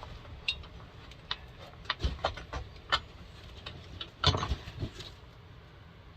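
Scattered clicks and knocks of parts and tools being handled, a louder knock a little over four seconds in; no engine running.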